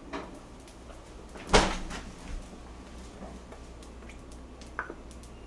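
One loud, sharp knock about a second and a half in, then faint handling sounds as a plastic ketchup squeeze bottle is squeezed over toast.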